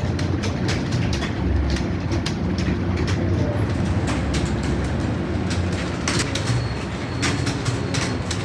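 Computer keyboards being typed on by several people at once, keys clattering irregularly over a steady low rumble.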